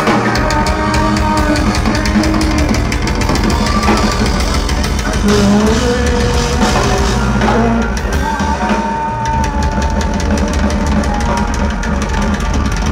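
Metal band playing live without vocals: a drum kit pounds away with steady bass drum and snare hits under held and sliding guitar notes.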